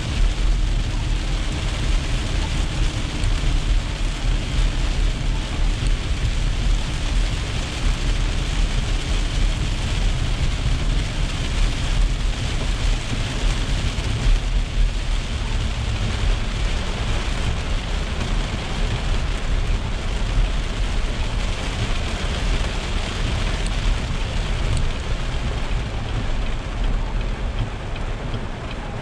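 Heavy rain hitting a moving car, heard from inside the cabin, mixed with tyre noise on the wet road and a steady low rumble. The noise eases slightly near the end.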